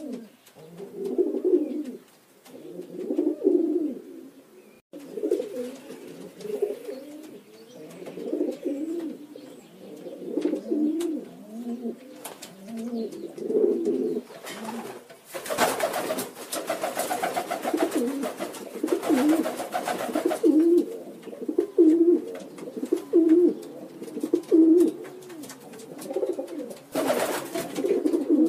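Domestic pigeons cooing over and over, a low coo about once a second. Midway a few seconds of hissing noise join in, and again briefly near the end.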